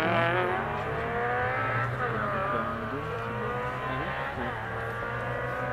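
Rally car engine revving hard under acceleration. Its pitch shoots up at the start, then keeps climbing with dips at gear changes about two and four seconds in.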